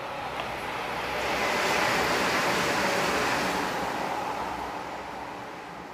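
A surf-like rushing noise that swells over about two seconds, holds, then slowly fades.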